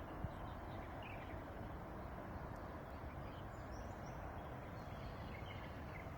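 Steady outdoor background hum with faint, scattered bird chirps.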